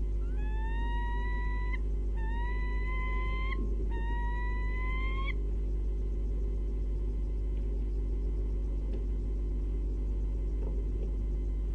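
An owl gives three drawn-out, slightly rising hoots in quick succession, with a steady low electrical hum under them.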